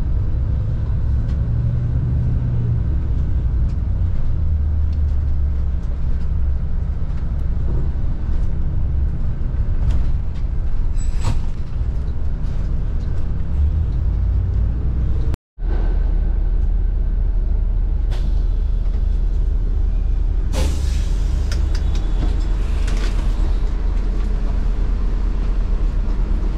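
Bus engine running with a steady low rumble, broken by a brief cut about halfway through. Several short hisses come in the second half.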